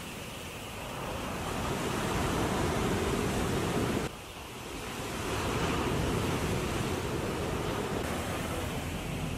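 Ocean surf washing up a sandy beach, a steady rushing that swells and ebbs as waves come in, with a sudden brief drop about four seconds in.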